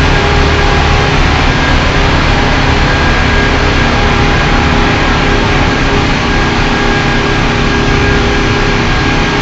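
Semi truck's diesel engine running steadily. A constant low drone with a few steady higher tones over it, loud and unchanging.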